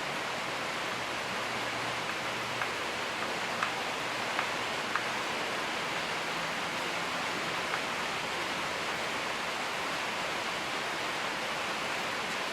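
Steady hiss of background noise, with a few faint light clicks scattered through it, from hand tools and screws as the fuel tank's mounting screws are taken out.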